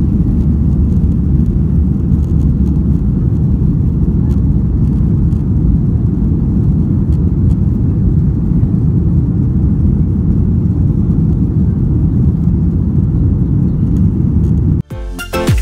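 Boeing 737-800 cabin noise at takeoff: the CFM56-7B turbofans at takeoff thrust through the runway roll, liftoff and initial climb, a loud, deep, steady noise. Near the end it cuts off abruptly and music starts.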